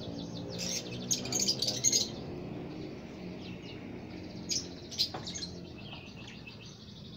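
A flock of caged lovebirds chattering: clusters of sharp, high chirps about a second in and again around five seconds in, over continuous softer twittering.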